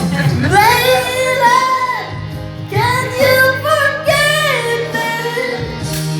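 A pop ballad song playing: a high voice sings two long melodic phrases over a steady instrumental backing.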